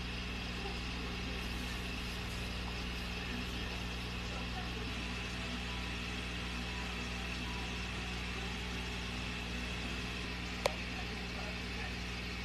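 A steady low mechanical hum, with one sharp click about ten and a half seconds in.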